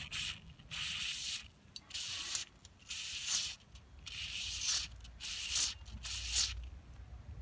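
Aerosol carburetor cleaner sprayed through its extension straw into the passages of a small two-stroke brush cutter's Walbro carburetor, in about six short hissing bursts.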